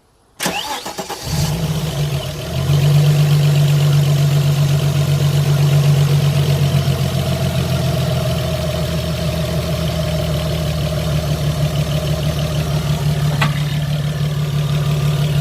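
Opel V6 engine cranked by the starter, catching within about a second, picking up briefly and then running at a steady idle. The belt idler pulley has been regreased and no longer rattles; the engine runs quietly, with one sharp click near the end.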